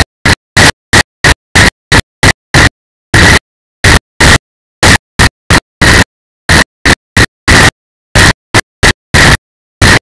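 Harsh, distorted bursts of static-like noise, cutting in and out two to three times a second with dead silence between them: a glitching, overloaded audio track from the kart-mounted POV camera during a gravity-kart run.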